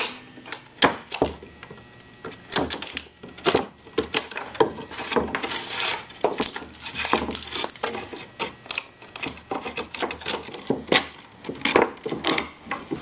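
Chisel snapping and prying out the thin wooden strips left between circular-saw kerfs in a dado: an irregular run of sharp cracks, clicks and knocks of breaking wood.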